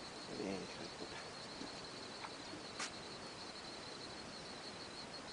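Insects trilling steadily at a high pitch, faint, with a brief faint voice about half a second in.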